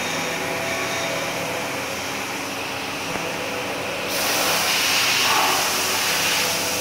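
An aluminium-profile CNC machining center runs in a workshop, giving a steady mechanical hum with several steady tones. About four seconds in, a loud high hiss starts suddenly and keeps going.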